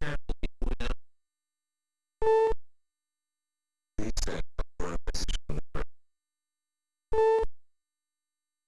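Electronic emergency-alert signal: a stuttering run of short, clicking data bursts, a brief buzzing tone about two seconds in, another clicking run, and a second brief buzz near the end.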